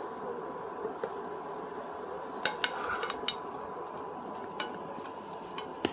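A metal spoon clinks and taps against a non-stick frying pan while pizza toppings are pushed around, giving a handful of sharp clicks scattered from about two and a half seconds in. A steady low hiss runs underneath.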